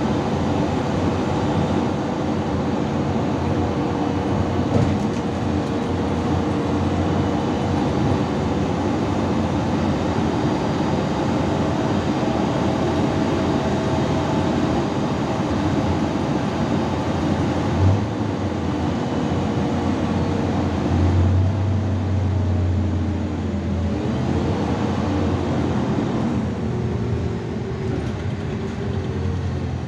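Inside a moving IVECO Urbanway 12M city bus: steady engine and road noise with a drivetrain whine, a single bump about eighteen seconds in, and the whine rising and falling in pitch through the last few seconds.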